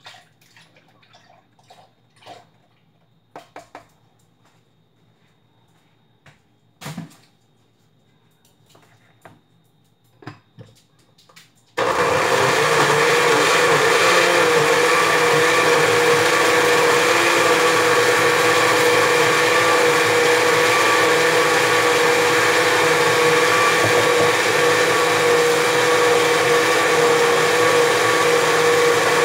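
Countertop blender switched on about twelve seconds in and running steadily, with an even motor whine, as it blends a liquid mix of condensed milk, evaporated milk and cream cheese. Before it starts there are a few light knocks and clinks as the jug is handled.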